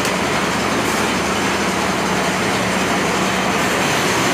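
Sachet-packing machines running in a small factory: a steady mechanical noise with a constant low hum.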